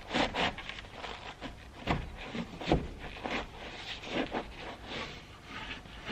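A metal plaster/drywall knife scraping a paper wasp nest off a barn's wall: irregular rough scrapes and knocks, about one every half second to second.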